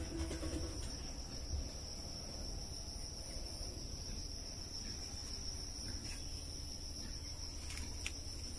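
Insects (crickets or cicadas) droning steadily with a continuous high-pitched buzz, over a low steady rumble.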